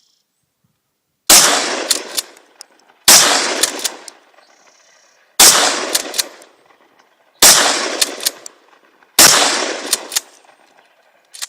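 Mossberg 500 pistol-grip pump shotgun with a Roadblocker muzzle device firing five shots, about two seconds apart, each blast trailing off over about a second.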